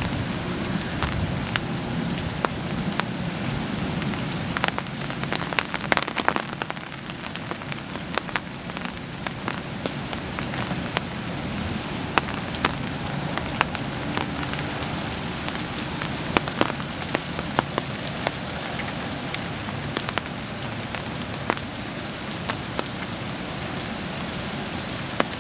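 Steady rain falling, with scattered drops ticking sharply close by. A low rumble of distant thunder sits under it in the first several seconds, then fades.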